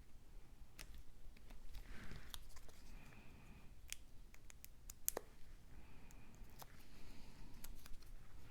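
Faint scattered clicks, taps and light rustles of cut cardstock pieces being handled and pressed together at a work table.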